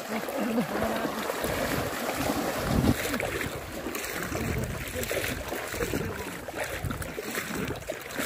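Shallow water splashing and sloshing as several people wade quickly through it, knee-deep.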